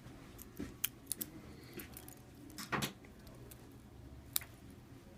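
Small phone parts being handled and fitted back into an opened smartphone: a handful of sharp, light clicks and taps of plastic and metal, the loudest a little before three seconds in.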